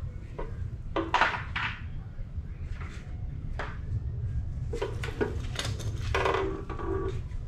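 Metal hand tools clinking and rattling as they are handled, in several short bursts of clatter, the longest late on with a brief ringing tone, over a steady low hum.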